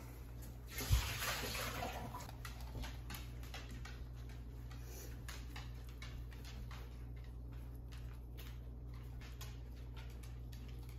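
Paper towels rustling and patting as they are pressed onto soaked morel mushrooms to blot them dry, with a thump and a short burst of rustling about a second in, then soft dabbing and faint clicks over a steady low hum.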